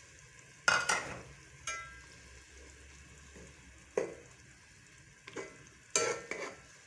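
Crushed tomatoes frying in hot oil in a metal pot as a metal ladle stirs them: a low sizzle, broken by sharp clinks of the ladle against the pot. The loudest clink comes just under a second in, with a brief ring after the next one, and more clinks follow at about four and six seconds.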